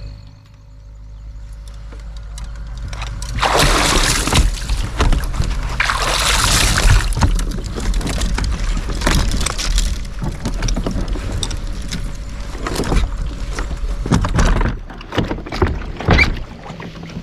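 Water splashing and sloshing around a kayak, in uneven surges with short sharp splashes.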